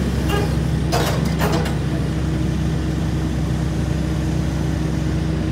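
Hitachi ZAXIS 130LCN excavator's diesel engine running steadily while the arm and bucket are worked. In the first two seconds there is a short run of mechanical clattering and creaking.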